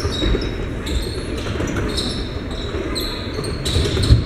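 Basketball game on a hardwood gym floor: the ball bouncing as it is dribbled, sneakers squeaking in short high squeals several times, over an echoing background murmur of the gym.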